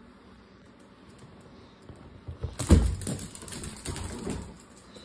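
A Doberman's paws thumping and scuffing on a hard floor as it lunges in play at a small dog: one loud thump a little past halfway, then a run of lighter knocks and scrapes that stop shortly before the end.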